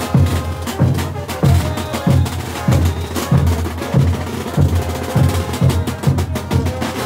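Bolivian brass band playing a morenada while marching: bass drums beat about twice a second under crashing cymbals, and brass holds notes over the beat.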